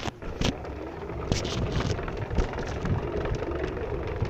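Riding noise from a DIY electric Onewheel board rolling along a path: a steady low rumble with wind on the microphone, picking up about half a second in, with a few short knocks from the wheel going over bumps.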